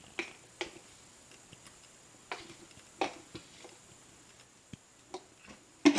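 Kitchen utensils knocking and clicking against containers: about seven short, sharp clicks at irregular intervals, the loudest near the end.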